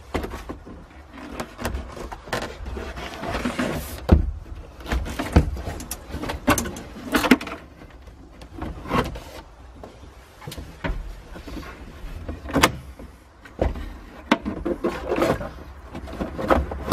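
A hard plastic dashboard pad being manoeuvred into a stripped dash frame: irregular knocks, clunks and scraping of plastic against the frame and wiring, with a few sharper knocks spread through.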